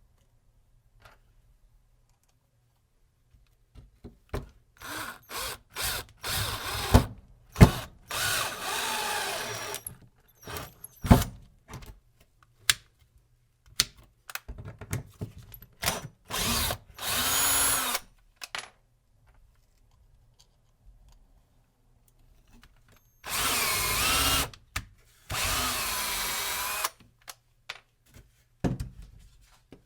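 Cordless drill driving screws into wood in several runs of one to three seconds each, the motor's pitch bending and wavering under load. Short sharp clicks and knocks come between the runs.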